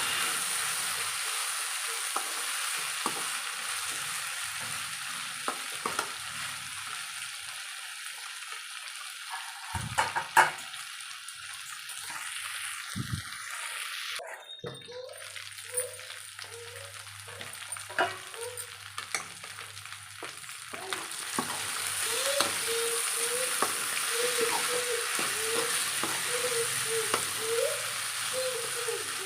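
Sliced ivy gourd (dondakaya) frying in oil in a pan on a medium flame: a steady sizzle as the moisture cooks off, with occasional clicks and scrapes of a spatula stirring against the pan. The sizzle grows louder about two-thirds of the way through.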